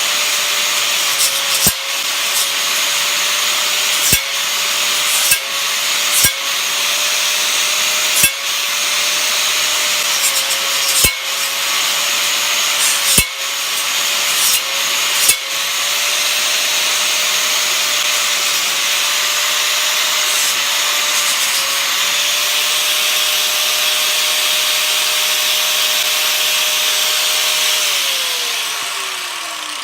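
Hitachi 4.5-inch angle grinder with a cutting wheel cutting through a ceiling fan motor's copper windings: a steady high whine over a hiss of cutting. About nine times in the first half the pitch sags briefly with a knock as the wheel bites. Near the end the whine falls away as the grinder winds down.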